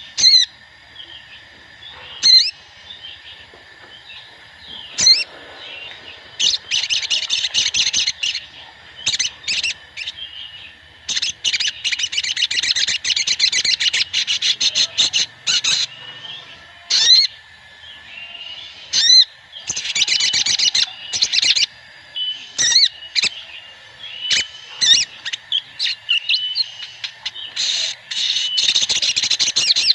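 Several brown-throated sunbirds (sogon) chirping and twittering together. There are sharp single calls in the first few seconds, then long runs of rapid high chatter. It is a lure recording of many birds, played to prompt a caged sunbird to sing.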